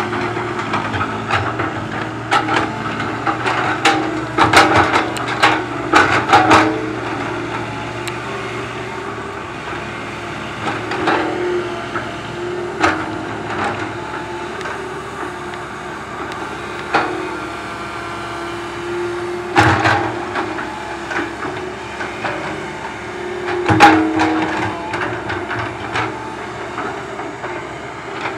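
Komatsu PC130 hydraulic excavator's diesel engine running steadily under load, with sharp knocks and clatter of rock and dirt as the steel bucket digs into stony ground, the clatter thickest in the first several seconds and twice more later.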